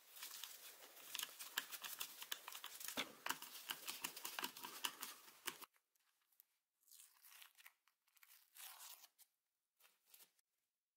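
Dense scratchy crackling and clicking as the old Wolf electric drill's plastic housing is worked loose and taken off the motor. It cuts off abruptly about halfway through, and a few faint scrapes and rubs of the parts being handled follow.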